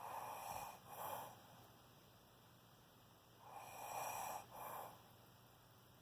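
A sleeping person snoring faintly: two snoring breaths about three and a half seconds apart, each a longer noisy breath followed by a short second puff.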